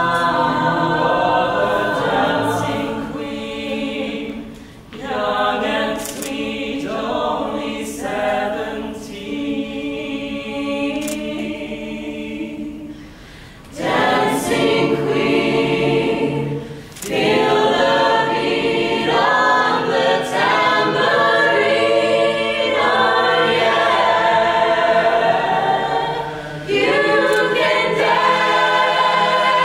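Mixed-voice a cappella group singing in close harmony with no instruments. It thins to a softer passage in the middle, breaks briefly about five, thirteen and seventeen seconds in, and comes back at full strength for the rest.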